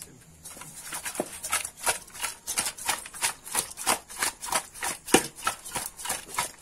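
Pieces of raw seasoned tilapia tossed and shaken in a metal pot to coat them in salt and spices: wet, slapping swishes about three times a second, starting about half a second in.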